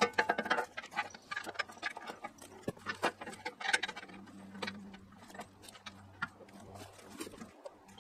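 Plastic packing wrap crinkling and crackling in irregular bursts as it is pulled and peeled off new machinery, busiest in the first four seconds.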